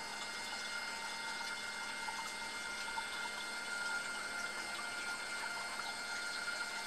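Belt drive of a motorised camera slider, driven by a small 12-volt electric motor through belts and pulleys, running at a constant speed as the carriage slides along Igus drylin rails. It makes a steady whine of several fixed pitches over a light hiss, and it runs quite smoothly.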